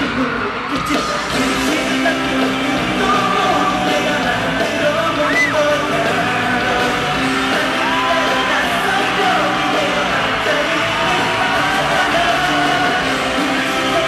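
Live K-pop song by a boy group, with singing over the backing track and yells over the music, echoing in a large arena as picked up from the audience.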